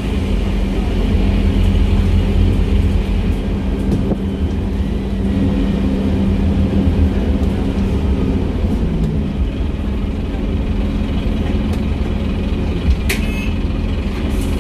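Scania N230UB bus's five-cylinder diesel engine heard from inside the saloon, running steadily under a low rumble, its note dropping about halfway through as the bus slows to a stop. A short sharp sound near the end.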